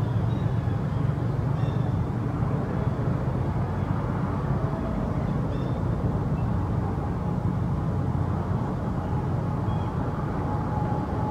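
Steady low rumble of background noise, with a few faint, short high chirps now and then.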